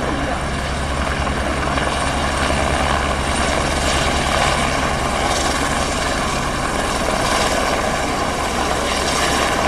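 Airbus (Helibras) AS350 Esquilo police helicopter hovering low just after lift-off: a steady, loud chop of the main rotor blades under the turbine's even whine.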